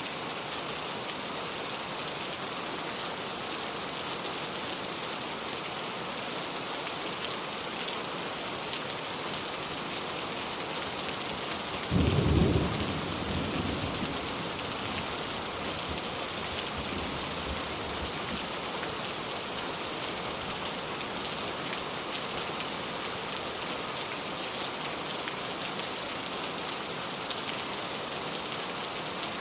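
Steady heavy rain pouring down. About twelve seconds in comes a sudden loud clap of thunder, which rumbles away over the next few seconds.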